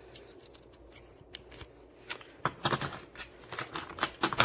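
Hand tools and plastic parts of a tool kit being handled: quiet at first, then a run of irregular clicks and rattles from about halfway in.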